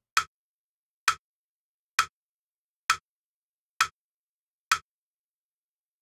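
Crotchet beat pulse: six even metronome clicks, just under a second apart, counting in the violin extract.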